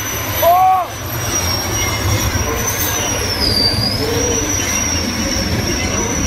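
Modified pulling tractor's engine running hard under full load as it drags the weight sled, a deep steady rumble with a high whine over it that dips in pitch about halfway through.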